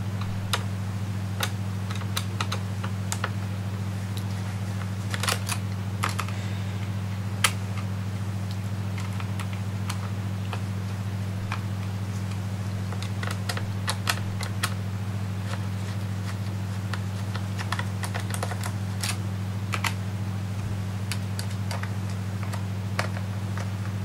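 Scattered small clicks and ticks of a screwdriver turning screws back into a Dell Inspiron laptop at its CPU heatsink, over a steady low hum.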